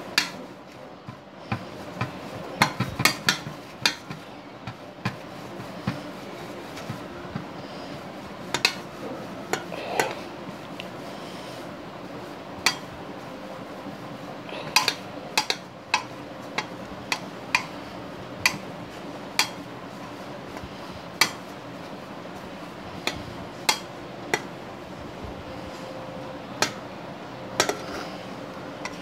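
A steel plate clicking and tapping irregularly as hands roll soft dough into ropes on it, with sharp knocks now and then, over a faint steady hum.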